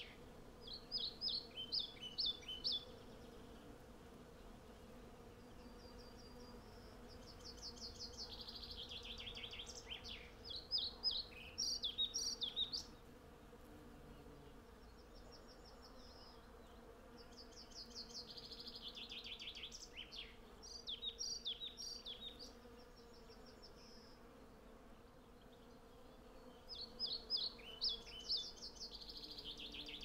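Hundreds of honey bees foraging together make a steady hum. Over it a songbird sings in bouts of quick high notes, four times about ten seconds apart, each bout louder than the buzz.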